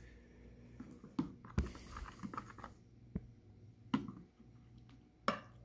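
A fork stirring batter in a plastic bowl: several short knocks and clicks with a brief scrape, over a faint steady low hum.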